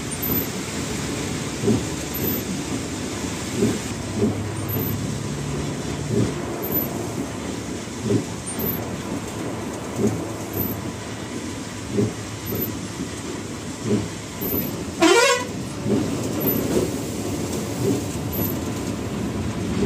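Steady rain and road noise inside the driver's cabin of a Volvo B11R multi-axle coach, with soft knocks every second or two from the windscreen wipers. About fifteen seconds in, a short tone sweeps up in pitch, like a horn toot.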